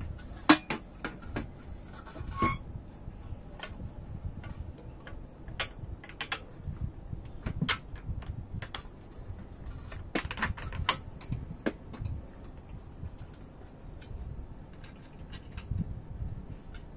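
Irregular clicks and taps of a telescope tripod leg, its plastic mount bracket and a metal bolt being handled while the leg is fitted into the mount head. The loudest click comes about half a second in, one knock about two seconds in rings briefly, and a quick run of clicks comes about ten seconds in.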